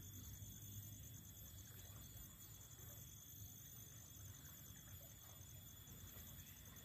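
Near silence: faint outdoor ambience with a thin, steady, high-pitched insect trill over a low hum.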